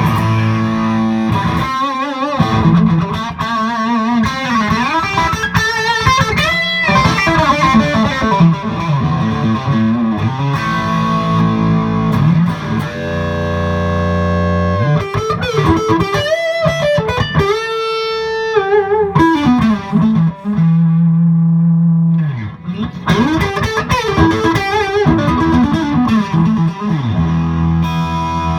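1959 Gibson Les Paul Special electric guitar with P90 pickups played through an overdriven amplifier: a lead-style passage of single notes with string bends and vibrato and several long sustained notes.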